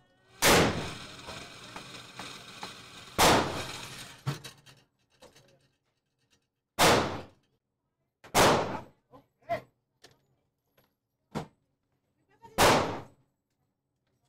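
Five gunshots at an indoor shooting range, spaced a few seconds apart at uneven intervals, each ringing briefly off the range walls, with fainter clicks and knocks in between.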